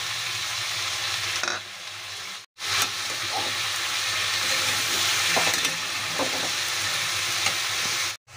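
Chopped capsicum, brinjal, potato and tomato sizzling in hot oil in a kadai, with a metal spatula stirring and knocking through them. The sizzle cuts out briefly about two and a half seconds in and again near the end.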